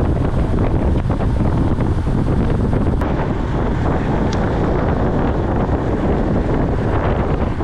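Wind buffeting a GoPro microphone mounted on a road bike moving at riding speed: a steady low rumble of rushing air.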